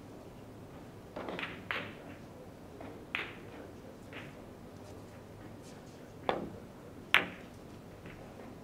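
Billiard balls clicking against each other during a shot on a carom table: a few softer knocks, then two sharp clicks about six and seven seconds in, the second the loudest.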